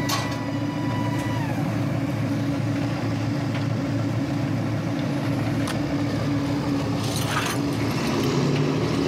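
Purse-seine fishing boat's engine running steadily, a low drone mixed with the rush of water churned up in the wake.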